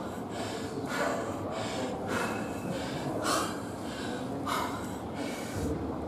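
A man panting hard, out of breath after running the beep test. Heavy, gasping breaths go in and out about once a second.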